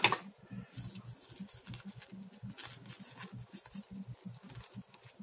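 Small clear plastic bag crinkling and rustling as hands open it and handle the spare ear tips inside, with irregular light crackles and soft knocks.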